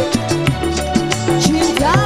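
Live dangdut band playing an instrumental passage: a wavering melody line over bass and regular drum hits, with no singing.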